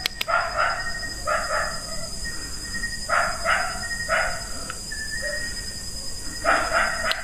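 A dog barking, short barks that come mostly in pairs, a second or more apart, over a steady high-pitched whine.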